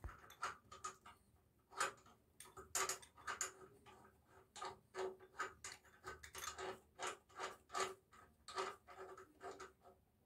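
Nut on a washbasin's wall-fixing bolt being turned loose: a string of faint, light metallic clicks, irregular, two or three a second.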